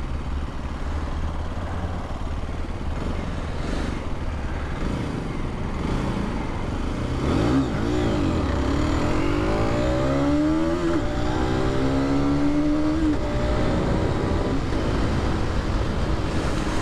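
Aprilia RS 125's 125 cc four-stroke engine running under way, over a steady drone of wind and road noise. About eight seconds in, the engine note climbs, drops briefly as at a gear change, climbs again, then holds steady.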